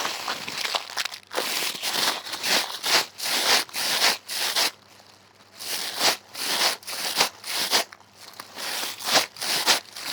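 Wet clothes being scrubbed by hand for washing: repeated short, rasping rubbing strokes about two a second, with a pause of about a second midway.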